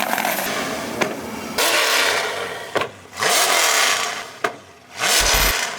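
Car engine revving in several loud surges, each broken off by a short drop.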